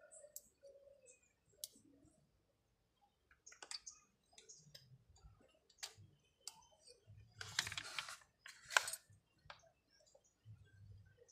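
Faint scattered clicks and taps of small parts being handled and fitted on a chainsaw during reassembly, with a brief scraping rasp about seven and a half seconds in, followed by a sharp click.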